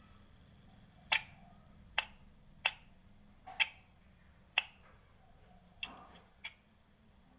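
A series of about seven sharp, short taps at an uneven pace, roughly one a second.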